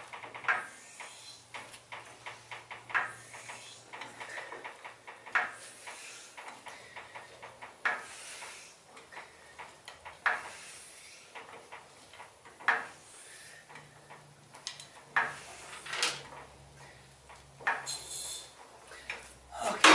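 Hydraulic floor jack being pumped by its long handle under the front of a pickup, a sharp metallic clack on each stroke about every two to two and a half seconds, with lighter clicks between.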